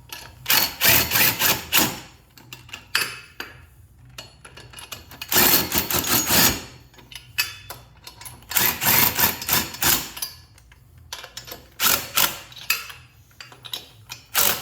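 Ratchet wrench snugging down the lug nuts on a garden tractor's axle extension, in four bursts of rapid clicking.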